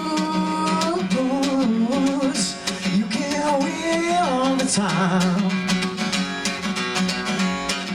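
Music: a singer over strummed acoustic guitar.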